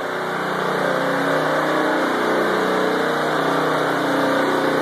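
Harbor Freight Predator 173cc, 6 hp vertical-shaft engine running steadily on propane, driving the generator's alternator. It gets louder over the first second or so.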